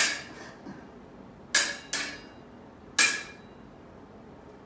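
Steel smallsword blades clashing as the fencing master beats on the student's blade: four sharp metallic clinks, each ringing briefly. One comes right at the start, two close together about a second and a half in, and one more about three seconds in.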